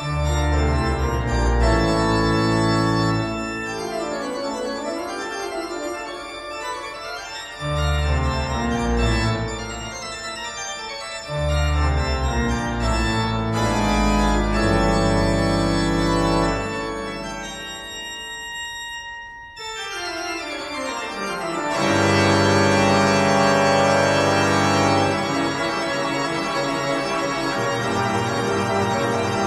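Background music on an organ: long sustained chords over bass notes that change every few seconds, with a falling sweep in pitch about two-thirds through before a louder section begins.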